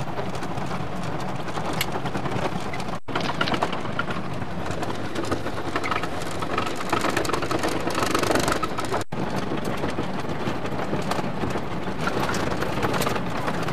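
Steady engine and road noise inside a moving car's cabin, broken by two brief dropouts about three and nine seconds in.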